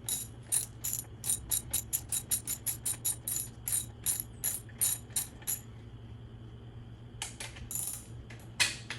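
A socket ratchet clicking in quick, even strokes, about four or five a second, as it unscrews the 17 mm top cap nut of a CRF125F front fork. This is followed by a few scattered clicks and a sharp knock near the end as the cap comes free against the push of the fork spring.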